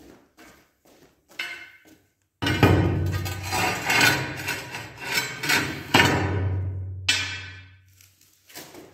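A long plank is scraped and dragged across a rough concrete screed floor. Two rough pushes start suddenly, about two and a half and six seconds in.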